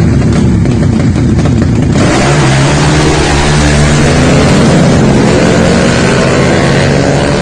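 Four-stroke motorcycle engines running loud at high revs. The sound changes about two seconds in, then the engine note climbs slowly in pitch.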